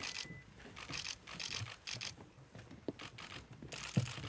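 Footsteps of several people walking on a path, heard as irregular scuffing and scratchy rustling with a few soft thuds.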